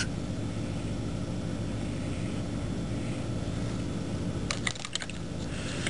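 Steady low hum and hiss of room tone, with a short run of faint clicks about four and a half seconds in.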